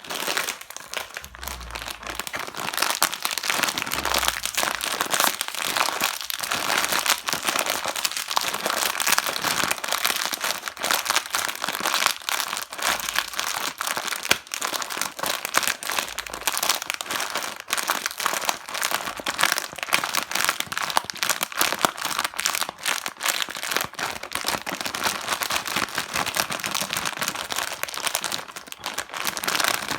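Plastic snack wrappers and packets being handled and crinkled, a continuous rapid crackling.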